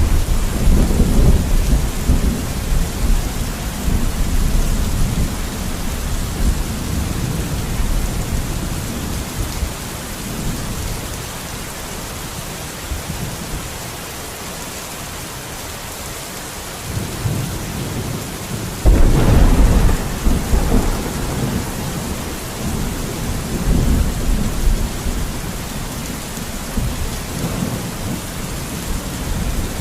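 Steady heavy rain with rolling thunder: a long low rumble at the start, then a sudden loud thunderclap about two-thirds of the way in that rumbles away over several seconds.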